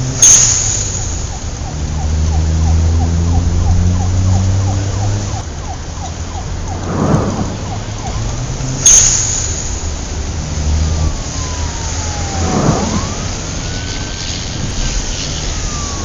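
Designed sound-effects track for a sports-car promo: a low engine-like rumble under two sharp cinematic hits about eight and a half seconds apart, with quick ticking at about four a second through the first half and whooshes and sliding, siren-like sweeps in the second half.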